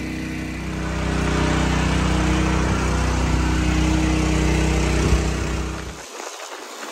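Small gasoline engine on a sewage pump-out unit running steadily, getting louder about a second in. Near the end it cuts off abruptly, giving way to a rush of wind and water spray.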